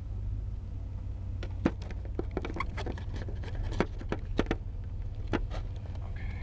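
Car engine running, a steady low rumble heard inside the cabin, with a scatter of irregular clicks and knocks through the middle.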